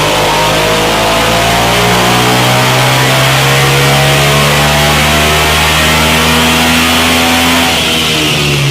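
Suzuki SV650's 645 cc 90-degree V-twin pulling under load on a dynamometer, its revs climbing steadily and loud.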